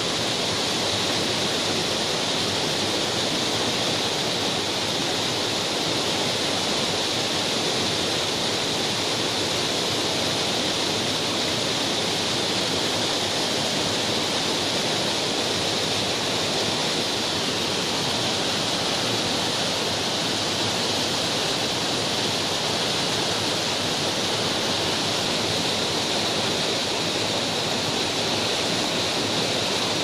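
The Rhine Falls, a 150 m wide river waterfall: masses of whitewater pouring over and churning below it, a steady, unbroken rush of water with a hiss strongest in the upper range.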